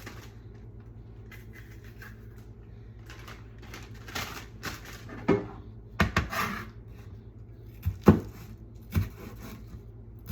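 Knife cutting yellow bell peppers on a cutting board: irregular knocks, several of them loud, over a steady low hum.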